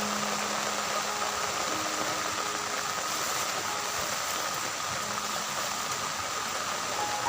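Steady hiss of heavy rain, with soft background music of long held notes under it.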